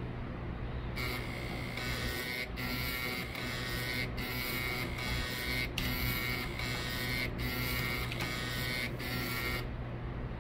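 Floppy drive's head stepper motor buzzing as it drives the read/write head back and forth. It starts about a second in and stops shortly before the end, with a brief break about every 0.8 s where the sweep reverses.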